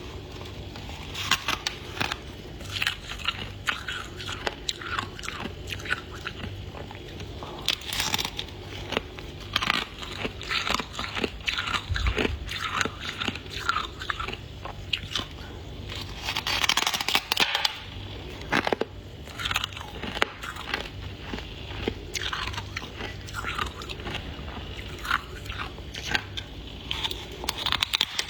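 Flaky freezer frost being bitten and chewed, with dense, irregular crisp crunches throughout. A steady low hum sits underneath.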